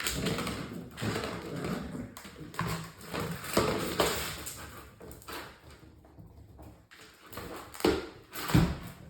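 Six-week-old English Springer Spaniel puppies scuffling and moving about, with irregular tapping and knocking sounds and a few sharper knocks near the end.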